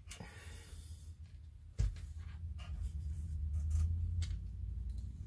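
Small clicks, taps and rubbing from model parts and wiring being handled, with one sharper click about two seconds in, over a low steady hum that grows louder after it.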